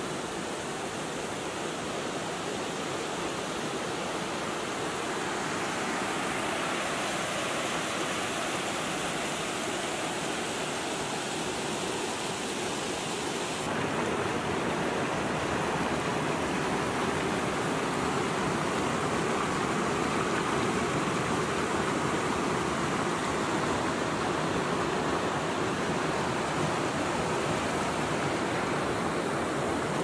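Mountain stream rushing over rocks: a steady, even rush of water. About fourteen seconds in the sound changes abruptly to a slightly louder, fuller rush with less hiss, as from a different spot along the water.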